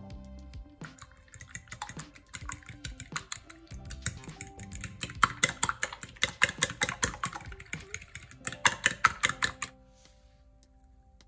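Metal spoon beating eggs and sour cream in a ceramic bowl: rapid clinking strokes against the bowl, about four a second. The strokes grow louder about halfway through and stop near the end, over faint background music.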